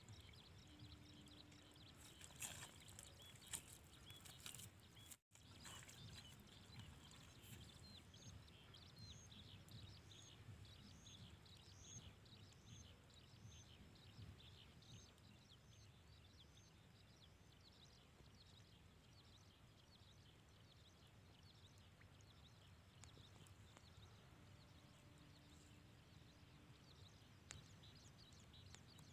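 Near silence: faint outdoor background hiss with a few soft clicks, and a short run of faint high chirps, about two a second, a third of the way in.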